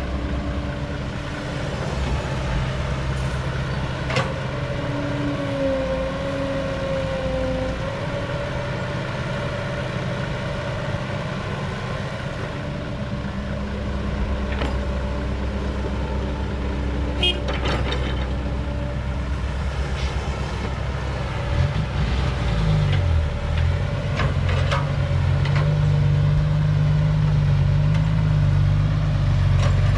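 Heavy diesel engines of a vintage Caterpillar excavator and a six-wheel dump truck running steadily at a worksite, with a few sharp metallic clanks about two-thirds of the way in. Past the middle, a diesel engine revs up and runs louder.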